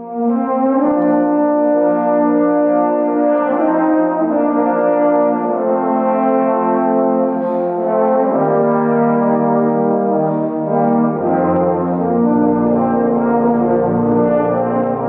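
A trombone ensemble with tuba playing slow, sustained chords in church-concert style. A deeper bass part comes in about eight seconds in and drops lower a few seconds later.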